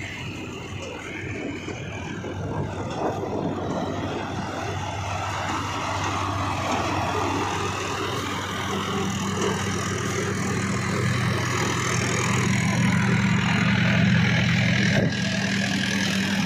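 Tractor-driven groundnut thresher at work, the tractor engine and threshing drum running at a steady speed. The steady hum grows louder from about halfway through. There is a single sharp knock about a second before the end.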